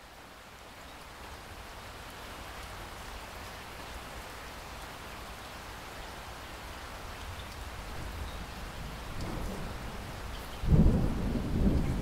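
Heavy rain pouring down and splashing on a flat, water-covered surface, growing louder. Near the end a loud, low rumble of thunder breaks in.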